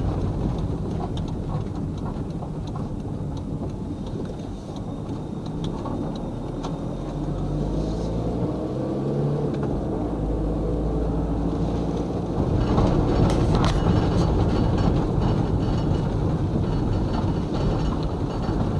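Car driving with steady engine and road noise; about halfway through the engine's pitch rises and falls as it changes speed, and the noise grows louder near the end.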